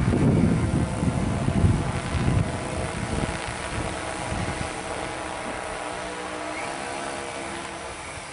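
Large multirotor drone's propellers humming steadily and fading as it flies away, with a heavy low rumble over the first three seconds that dies out.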